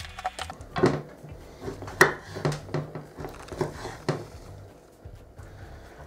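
Kitchen knife chopping through soft lamb fat onto a wooden cutting board: a series of uneven knocks, most of them between about one and four seconds in.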